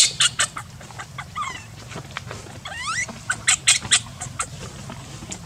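Newborn monkey squeaking: two thin, high calls that slide upward in pitch, amid many short sharp clicks.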